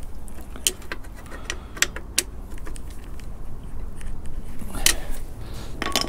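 Irregular sharp metallic clicks and clinks of hand tools on a KTM 790 Adventure's swing arm pivot bolt as it is hand-tightened, a cluster in the first two seconds and a few more near the end. The bolt was loose.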